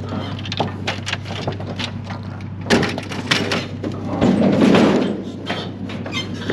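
Knocks, clatters and scrapes of a clothes dryer and a metal hand truck being handled on a wooden trailer bed, with one sharp knock about three seconds in and a heavier rumbling scrape a little later, over a steady low hum.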